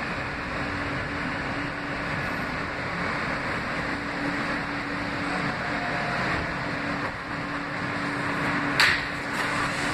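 Steady running noise inside an R160A subway car in motion: an even rumble of wheels and car body, with a faint steady hum through it. One sharp clack near the end.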